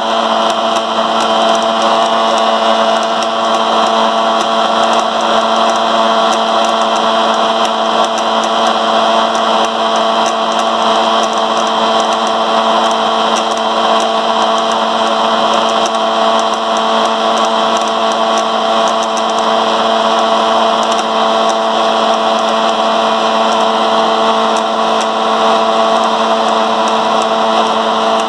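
Electric motor of a homemade magnet-and-coil generator rig spinning its propeller, running steadily with a constant hum over a whirring rattle. With the coil's output short-circuited for a load test, the pitch holds steady and the motor does not slow.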